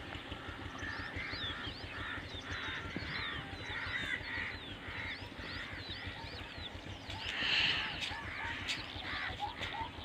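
Birds calling and chirping in the background, many short repeated calls, with a louder cluster of calls about seven and a half seconds in.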